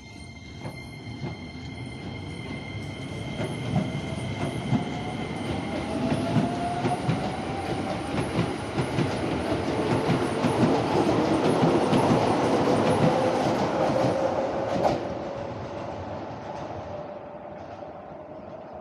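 Keisei Line electric commuter train pulling away and running past, its motor whine rising in pitch as it picks up speed and its wheels clacking over the rail joints. It grows louder to a peak about twelve seconds in, gives one sharp clack a few seconds later, then fades as the train moves away.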